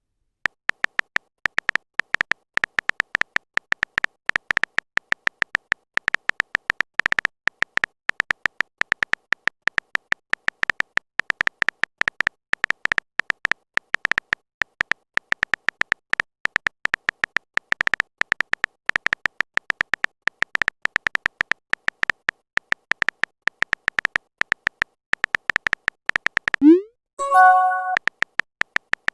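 Phone keyboard typing sound effect: a fast, irregular run of short beeping taps. About 27 seconds in, the taps pause for a short message-notification chime that starts with a rising swoop.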